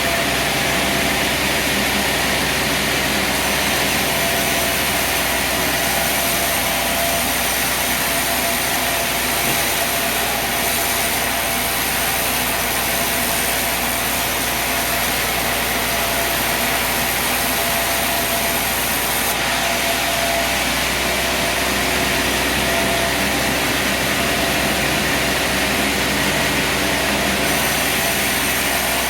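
Sawmill running steadily under power, sawing through a poplar log, with an even engine-and-blade noise throughout.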